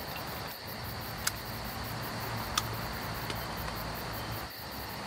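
Insects chirping in rapid, even, high-pitched pulses over a steady outdoor hiss, with a couple of faint sharp clicks.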